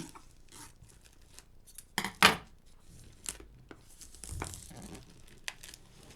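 Packaging on a boxed card deck being torn open and crinkled by hand, in short irregular bursts, the loudest about two seconds in.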